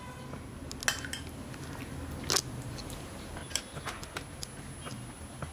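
A steel spoon clinking lightly against a small glass bowl a few times, scattered and irregular, as saffron milk is scooped out and drizzled.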